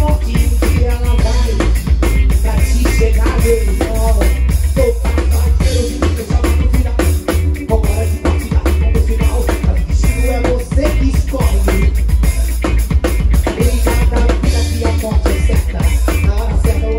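Live band music with a Waldman Turbo 2.0 electric bass playing a steady, heavy groove over a drum kit, heard as the on-stage mix.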